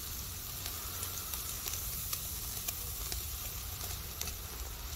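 Meat sizzling on a wire grill over glowing charcoal, with faint scattered pops and crackles.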